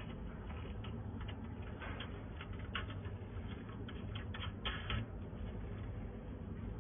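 Light, irregular clicks and ticks of fingers handling and threading a small brass nut on a welder's sheet-metal rear panel, busiest about four to five seconds in, over a low steady hum.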